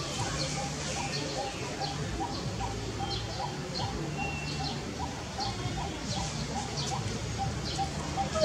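A bird repeating a short, even note about three times a second, with scattered brief high chirps from other birds.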